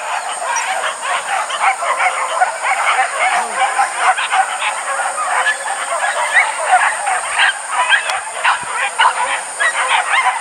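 A pack of hunting dogs yelping and baying all at once, many high-pitched voices overlapping without a break.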